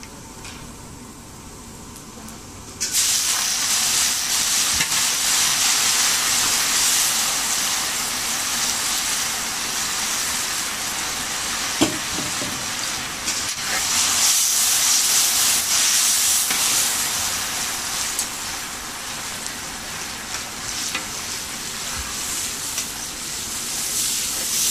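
Hot oil in a large iron kadai sizzling. It jumps from a faint crackle to a loud sizzle about three seconds in, as green leaves go into the oil, and keeps sizzling while a long ladle stirs them, easing a little near the end.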